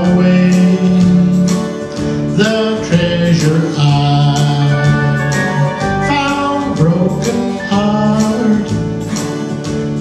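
Live song: a man singing into a microphone over a strummed acoustic guitar, with held notes and a steady strumming rhythm.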